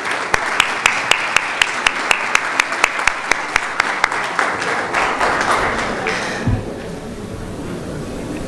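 Large audience applauding, with a few sharp claps standing out in a steady beat of about three to four a second. The applause dies down about six seconds in.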